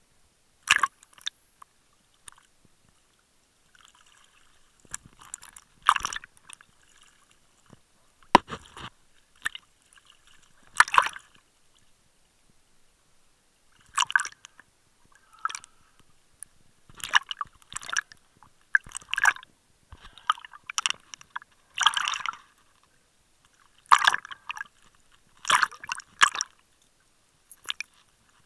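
Water sloshing and splashing against a waterproof camera housing in irregular short bursts every one to three seconds as waves wash over it.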